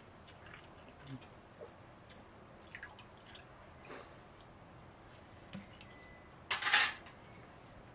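Wet eating sounds from a person eating idiyappam soaked in coconut milk by hand: scattered slurps, smacks and squelches. About four seconds in comes a slurp from the hand, and near the end a louder sound lasting about half a second.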